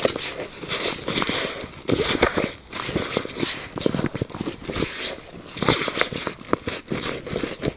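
Dry feeder groundbait being stirred into boiled peas: an irregular rustling and crunching with many small clicks.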